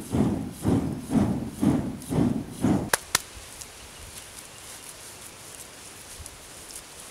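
Clay bellows pumped by hand with a stick, puffing air into a charcoal iron-smelting furnace at about two strokes a second. The pumping stops after about three seconds with two sharp clicks, leaving only a low background.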